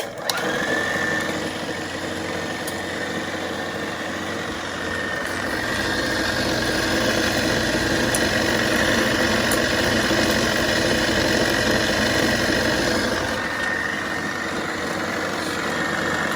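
1940s RCA 16mm movie projector running: its motor and drive mechanism give a steady hum with a high whine, getting louder about five seconds in and easing back near the end. It is running smoothly.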